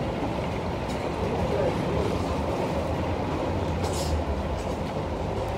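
Steady low rumble with a metal ladle scraping and clinking in a large metal cooking pot of meat and potatoes; one sharper clink about four seconds in.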